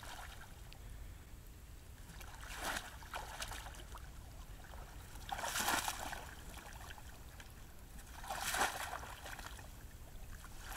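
Water sloshing and splashing in three short bursts as legs in waders wade through shallow, weedy marsh water, over a faint steady low rumble.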